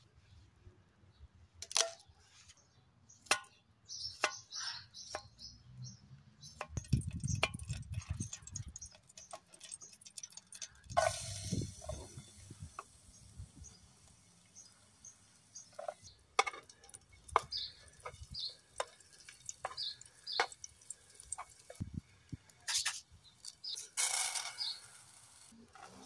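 A kitchen knife knocking on a wooden board as a garlic clove is chopped, in many short sharp taps, with garlic sizzling in hot oil in the pan from about eleven seconds in. Near the end, a louder rush as rice goes into the pan, then a spoon stirring it.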